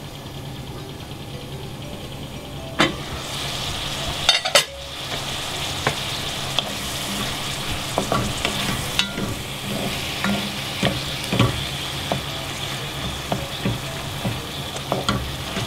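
Sliced sweet peppers, carrots and onion sizzling in a pan as they sweat down, with a wooden spoon stirring them and knocking against the pan again and again. The sizzle grows louder about three seconds in.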